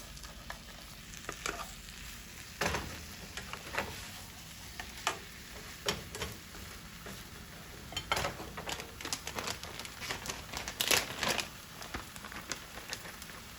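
A plant-based egg omelet frying in vegan butter in a pan, with a faint steady sizzle. Scattered clicks and scrapes, most likely from a spatula, come thickest between about eight and eleven seconds in.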